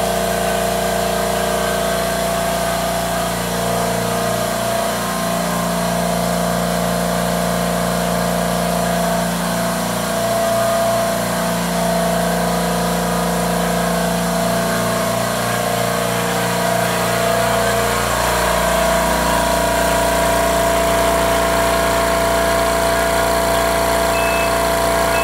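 Portable air compressor running, a steady, continuous motor hum with a change in its low tone about 18 seconds in.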